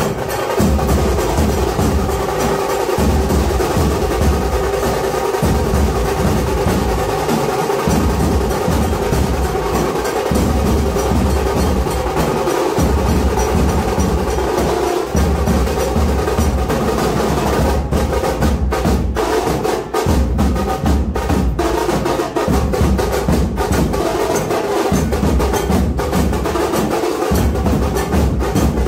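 Loud drum-based percussion music played without a pause, its deep drumbeats repeating under a dense, clattering layer of higher percussion.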